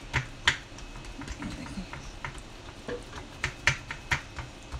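Fingertips pressing and patting oiled pizza dough out across a metal pan, giving an irregular scatter of short, sticky clicks and taps.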